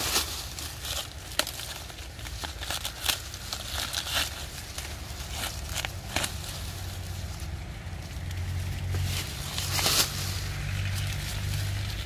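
Dry corn leaves and husks rustling and crackling, with irregular sharp snaps, over a steady low rumble.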